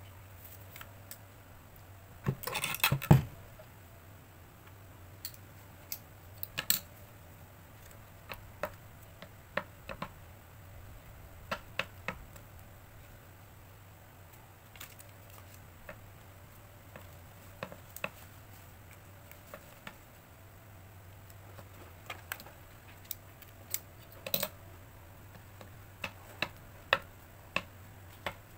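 Paper cutting and handling at a guillotine paper cutter: one loud cut of the blade lasting about a second, about three seconds in, then scattered clicks and taps as small pieces of card and a stack of notepad sheets are set down and squared on the cutter bed, coming more often near the end.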